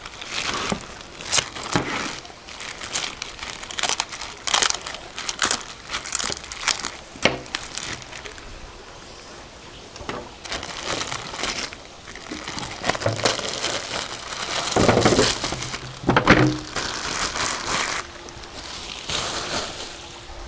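Thin plastic dry-aging bag crinkling and crackling in irregular bursts as it is peeled off a dry-aged ribeye loin, the film stuck to the meat's hardened, dried crust. There is a louder bout of crumpling about three-quarters of the way through.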